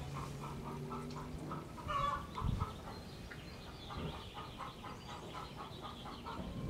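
Chickens clucking softly, short clucks repeating about four times a second, with one louder call about two seconds in.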